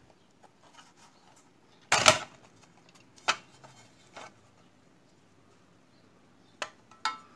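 Black plastic housing of a Weber rotisserie motor being pried apart by hand: a sharp crack about two seconds in, then a few lighter plastic clicks and knocks as the case comes open.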